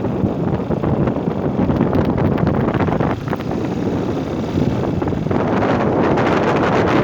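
Wind buffeting the microphone of a scooter on the move, a dense rushing rumble that grows louder about five seconds in.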